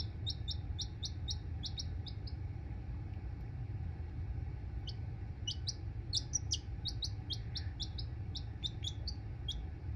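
A lavender Marans chick peeping in short, high cheeps: a quick run of them in the first couple of seconds, a pause, then more from about five seconds in, over a steady low hum.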